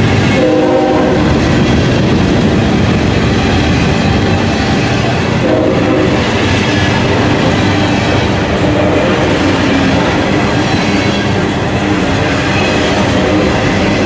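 Loaded freight cars of a CSX train rolling past close by: a steady loud rumble and clatter of steel wheels on the rails. Two brief pitched notes sound over it, one near the start and one about six seconds in.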